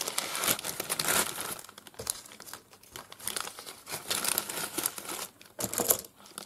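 Clear plastic snap-lock bag crinkling as plastic trays and a sheet of labels are pushed into it, on and off, loudest in the first second and again near the end.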